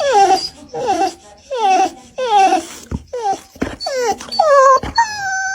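A dog whining and crying in a string of short cries that fall in pitch, then a longer held cry near the end.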